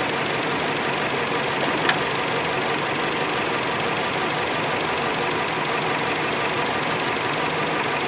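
2011 Dodge Avenger's 2.4-litre four-cylinder engine idling steadily, with one light click about two seconds in.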